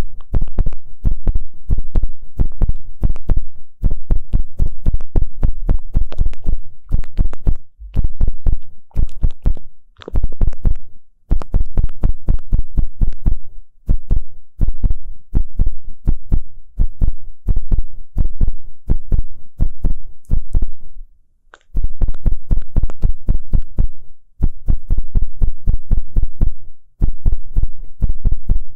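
Ear pick rubbing and scratching in rapid strokes against a microphone's ear, with deep thumpy rubs and short pauses a few times.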